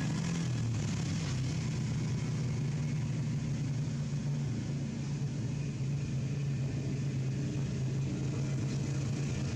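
A steady low mechanical hum with a hiss above it, like a running motor.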